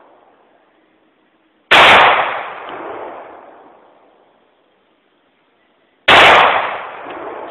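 Two pistol shots from a Smith & Wesson M&P45c compact .45 ACP handgun, about four and a half seconds apart, each very loud and sudden. Each shot is followed by an echo that swells again about a second later and fades over roughly two seconds.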